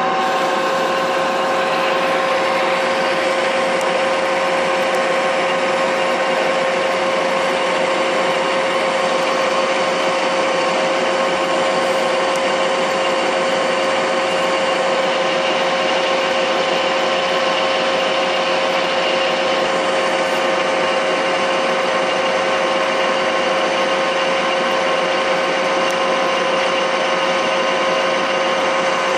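Metal lathe taking a roughing cut on an S355 structural steel bar, spindle at 630 rpm, removing a little over 2 mm of diameter. It runs steadily, a few held whining tones over an even cutting hiss as the tool peels chips off the bar.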